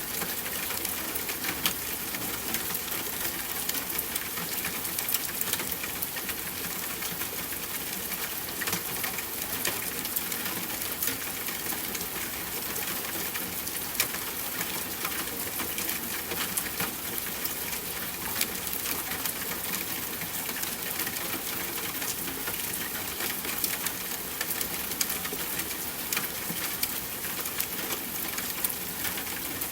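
Steady rain falling, an even hiss with many sharp drop impacts ticking through it.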